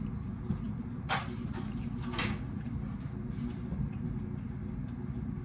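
Steady low rumble with two short rustles, about a second and two seconds in.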